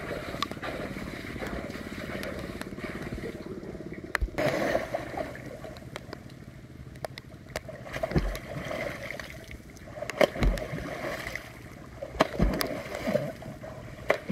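Water splashing and sloshing with several sudden knocks, over a small motor running steadily at first, as fish are driven through the water toward a gill net.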